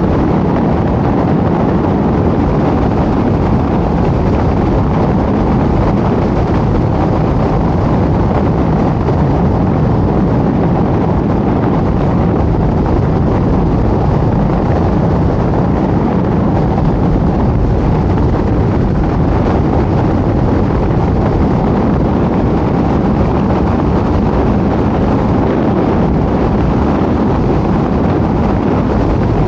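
Steady road noise of a car driving at speed: an even rumble of tyres on pavement mixed with wind on the microphone, holding the same level throughout.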